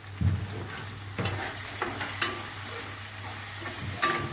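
Perforated metal skimmer stirring potatoes and ground spices in a metal kadhai while the masala sizzles. The spoon knocks and scrapes against the pan several times, and a couple of the knocks ring briefly.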